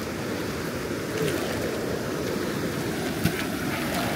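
Floodwater rushing steadily over an embankment, with one sharp click about three seconds in.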